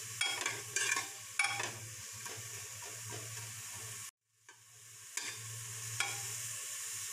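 Spatula scraping and stirring chopped onion and garlic as they sizzle in a pan with a little water, with sharp scrapes in the first two seconds and once more near the end. The sound cuts out suddenly for about a second just after four seconds in.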